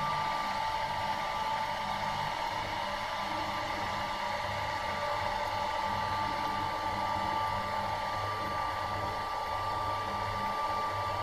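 Small electric fan motor running: a steady whir with a faint, even whine over it.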